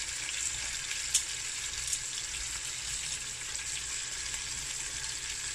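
Thin beef steaks frying in melted butter with garlic in a hot grill pan: a steady sizzle with occasional spitting crackles, the sharpest about a second in.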